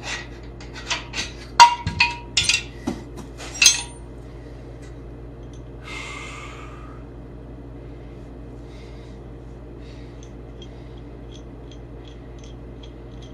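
Loose metal chassis parts and bolts clinking and knocking as they are handled, with a string of sharp clinks in the first four seconds, one ringing briefly. A short rustle about six seconds in and faint ticks later, over a steady low hum.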